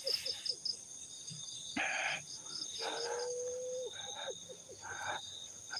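Night insects, crickets, chirping steadily in fast, even high pulses. Twice a lower call cuts in: a held note of about a second ending in a quick run of short falling notes.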